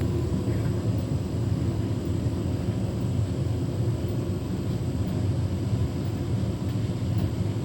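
Beko WTK104121W washing machine drum turning at load-distribution speed with a steady rumble, trying to balance an unbalanced load of flannelette bedding before it will spin.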